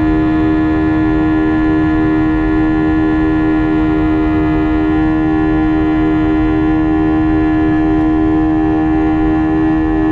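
Airbus A320 jet engines running steadily, heard inside the cabin: a constant whine with many overtones and a slight regular throb over a low rumble.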